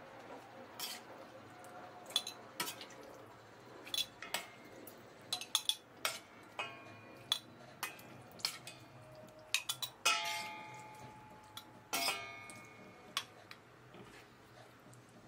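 Metal spoon clinking and scraping against a stainless steel pot as pickle is spooned out into glass jars: scattered light clinks, with two louder ringing clangs late on.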